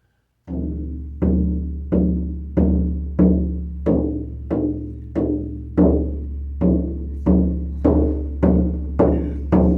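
An 18 by 14 inch oval deer-hide harmonic shamanic frame drum struck in a steady beat of about one and a half strokes a second. Each stroke rings on in a deep sustained tone with overtones above it, so the drum hums continuously between strikes.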